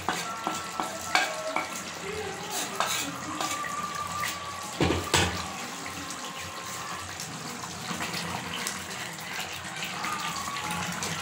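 Chicken masala bubbling and hissing in an aluminium pot as it cooks down to drive off its excess water, with a wooden spoon clicking and scraping against the pot and plate while chilli powder is added and stirred in. A heavier thump comes about five seconds in.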